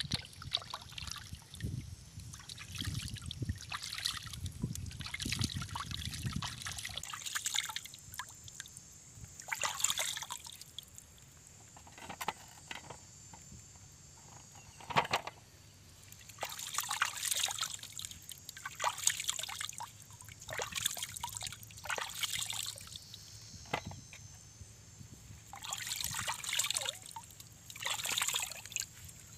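Hands splashing and sloshing in shallow stream water in repeated short bursts with pauses between, with water dribbling from fingers and a few sharp splashes.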